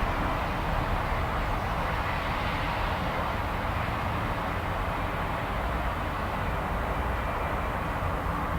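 Steady outdoor background noise, a low rumble with a hiss over it; no siren is sounding.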